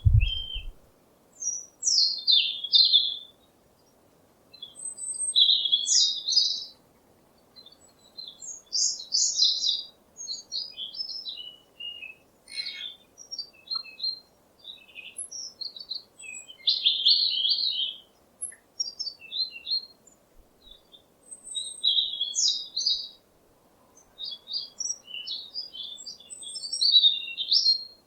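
Songbird singing: phrases of quick, high chirps and trills, each lasting a second or two, separated by short pauses.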